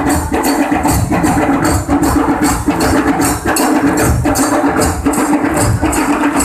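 Folk percussion band playing a fast, steady rhythm: drums beat under sharp cymbal strokes about three a second, with a held tone running through.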